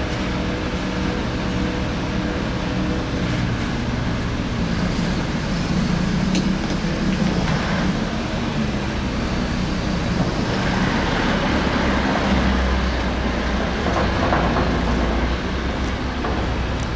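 Heavy diesel engine running as a four-axle dump truck creeps forward over a loose gravel roadbed. A deeper low rumble joins about ten seconds in and fades a couple of seconds before the end.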